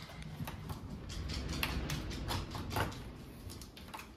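Handling noise as a side panel with computer fans mounted on it is fitted onto the base of a box fan air purifier: scattered light clicks and knocks with some rubbing.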